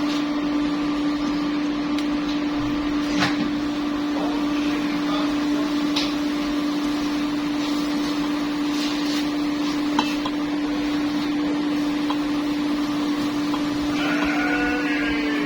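A kitchen appliance motor running with a steady hum and an even rushing noise, with a few light clicks and knocks over it.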